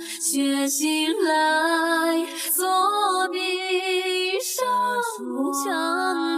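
Background music: a slow ballad, with a singer holding long, wavering notes.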